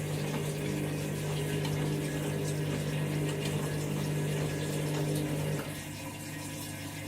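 Washing machine early in its 1200 rpm final spin, running with a steady hum and the sound of water, with the load possibly out of balance. About five and a half seconds in the main hum drops away and a quieter running sound carries on.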